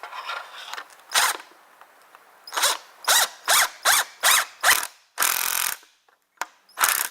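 Power drill-driver run in a series of short trigger pulses, its motor spinning up and down each time, to drive a pocket-hole fastening screw into a wood joint. A longer, rougher burst comes near the end.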